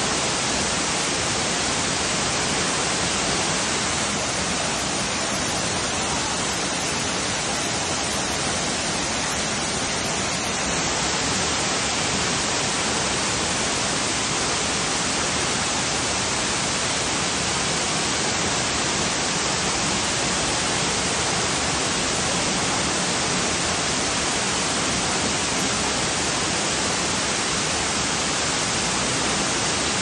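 Tinago Falls pouring down at close range: a steady, even rush of falling water.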